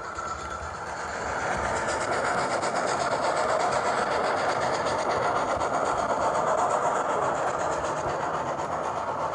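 OO gauge model train running along the track, a steady rushing rumble with fine rapid clicking of the wheels over the rail joints, growing louder about a second and a half in as it comes closer.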